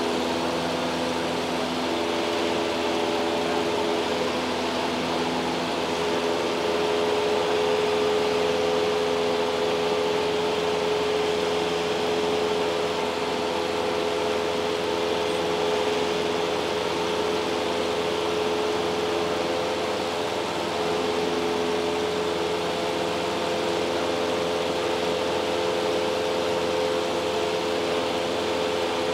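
Steady drone inside the cabin of a light single-engine airplane: engine and propeller noise mixed with airflow, with the engine throttled back for power-off stall practice. A few steady humming tones sit in the drone.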